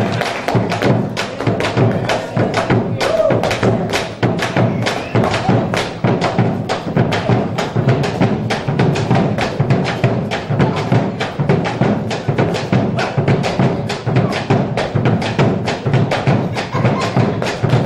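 Argentine folk music playing with a quick, steady percussive beat of sharp knocks, about four a second.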